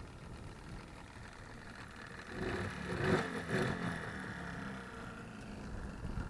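Small outboard motor running as the boat moves along the river, swelling louder and higher about two and a half seconds in for a second or so, then settling back to a steady drone.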